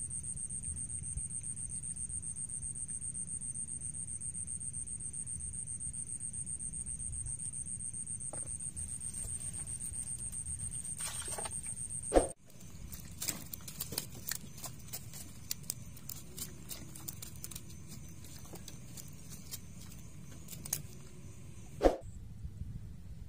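Night insects trilling: a steady, high, pulsing trill over a low rumble, cut off abruptly about twelve seconds in. After that come scattered sharp clicks and a louder knock near the end.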